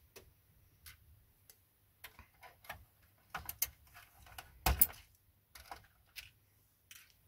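Plastic keycaps being popped off a Commodore 64C keyboard: scattered light clicks and taps, the loudest a little under five seconds in.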